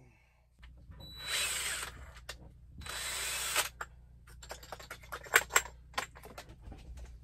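Cordless drill running in two short bursts, then a quick series of sharp ratcheting clicks, as of its keyless chuck being tightened on the bit.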